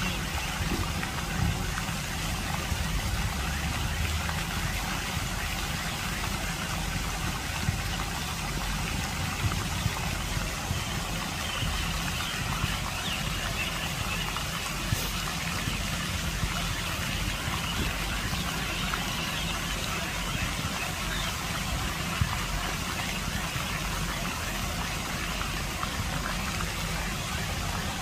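Lake fountain jets spraying and splashing into the pond, a steady rush of water over a low rumble.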